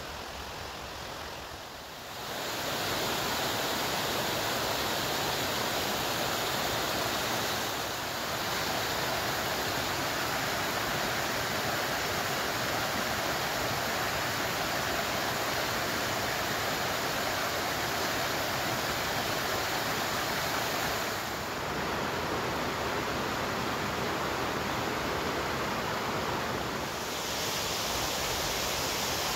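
Mountain stream rushing over rocks and small cascades, a steady rush of water that grows louder about two seconds in and stays strong, with only slight dips.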